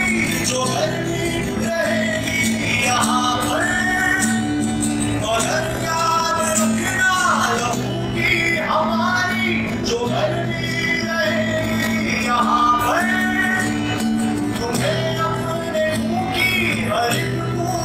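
A man singing a song solo while strumming an acoustic guitar, with long held notes in the vocal line.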